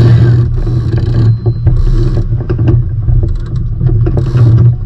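Wind buffeting the microphone with a heavy, steady low rumble, over water rushing and splashing against a sailing trimaran's hulls. Scattered sharp clicks and rattles of lines being worked through the boat's blocks and rigging.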